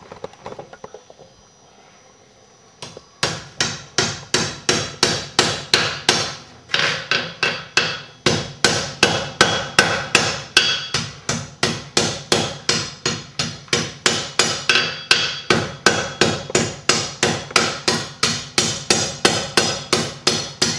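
Blacksmith's hand hammer striking the hot iron socket of a needle bodkin arrowhead on the anvil's edge, rolling it up into a socket shape. A steady run of blows, about three a second, starts about three seconds in after a quieter spell.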